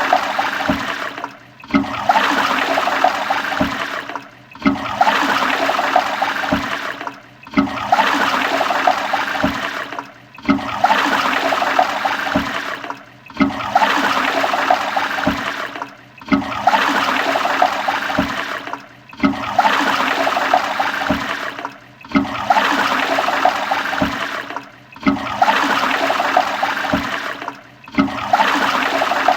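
Toilet flushing over and over: a rush of water that starts loud and tails off, breaks off briefly, and starts again about every three seconds.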